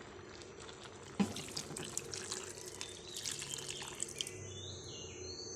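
Water being poured into a pot of braising fish, splashing and dripping, with a few light clinks. Faint chirping starts in the background near the end.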